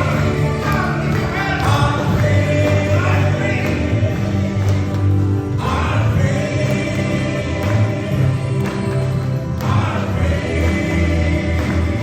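Gospel praise-and-worship music: a group singing over a full band with steady bass notes, in phrases that break off briefly about five and a half and nine and a half seconds in.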